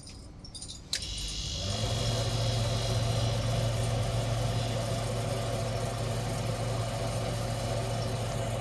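Refrigeration compressor of a three-door chiller cutting back in: a sharp click about a second in, then a steady low running hum.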